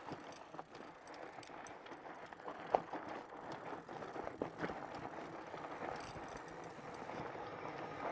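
Bikonit MD 750 fat-tire e-bike riding over a rough dirt trail: steady tire and trail noise with the bike rattling and knocking over bumps, the sharpest knock a little under three seconds in.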